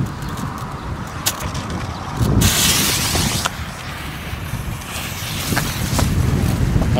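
Firecracker fuse catching from a smouldering wick and hissing for about a second, over a steady rumble of wind on the microphone.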